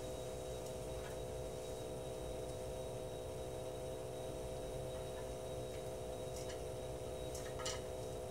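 Internal sampling pump of a Lighthouse Handheld 3016 particle counter running with a steady hum and a faint high whine, drawing room air through its probe during a one-minute count. Faint ticks sound over it, with a sharper click just before the end. The pump cuts off suddenly at the end as the sample finishes.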